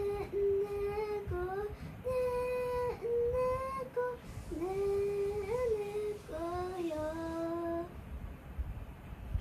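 A young girl singing a lullaby in four slow phrases of long held notes, stopping about eight seconds in.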